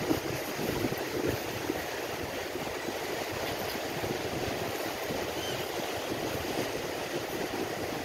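Small sea waves washing onto a sandy shore, a steady rushing noise, with wind buffeting the microphone in the first second or so.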